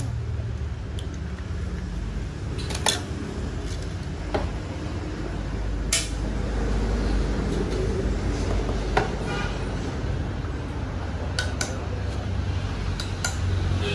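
Metal utensils clinking against an enamel mug and steel cookware: about five separate sharp clinks a few seconds apart, over a steady low rumble.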